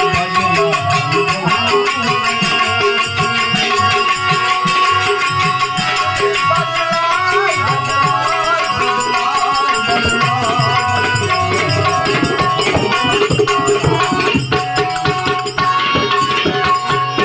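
Devotional bhajan music in an instrumental passage: fast drumming over steady held notes, with little or no singing.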